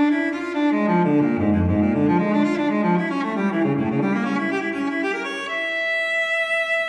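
Solo cello background music: a slow passage of moving lower notes, then a long held higher note near the end.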